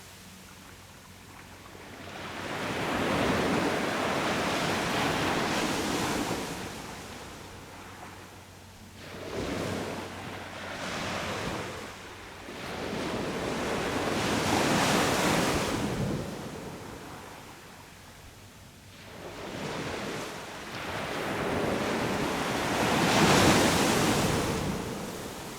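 Sea waves breaking and washing up a beach, the surf swelling and ebbing in about four surges a few seconds long each.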